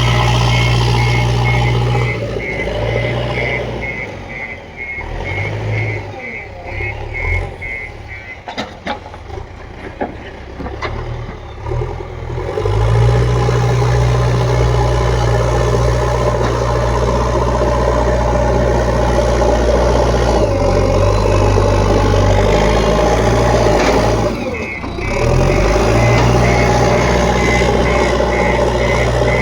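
JCB backhoe loader's diesel engine working, with its reversing alarm beeping in an even rhythm for the first several seconds and again near the end. The engine runs quieter and uneven for several seconds, then loud and steady again.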